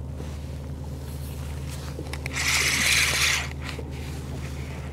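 Spinning reel being cranked in steadily, giving a low even whir, with a scraping rustle lasting about a second around the middle. The line is coming in with a tautog hooked that the angler did not feel take the bait.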